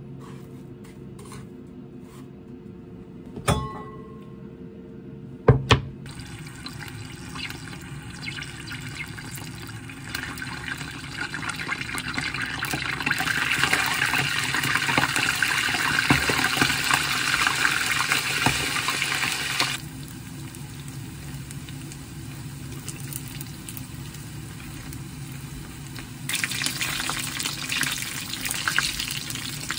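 Two sharp knocks, then panko-breaded gimbap slices deep-frying in a pot of hot oil: a dense sizzle that builds to a loud hiss. The sizzle drops back about two-thirds of the way through and swells again near the end.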